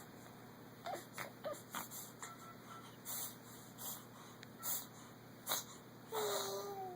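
Arabian horse breathing out in a run of short, breathy bursts through its nostrils, then, about six seconds in, a longer breathy sound with a thin squeak that falls slightly in pitch: the little noise of a sneeze that starts and then fades away.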